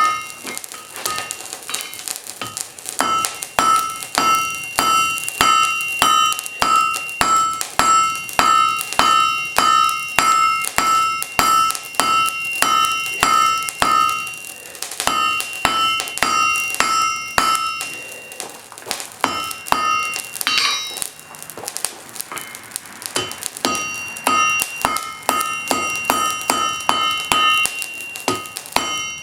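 Hand hammer striking hot wrought iron on an anvil, drawing out the bar: about two blows a second, each with a bright anvil ring. The blows pause briefly about midway, come sparsely for a few seconds, then resume at the same pace.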